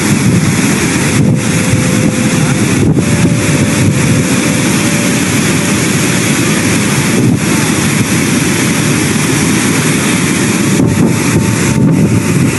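Loud, steady rushing roar of a landslide torrent of water and mud pouring down a slope.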